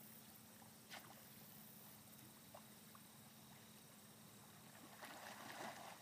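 Near silence outdoors: faint steady hiss, with a faint click about a second in and a brief soft noise near the end.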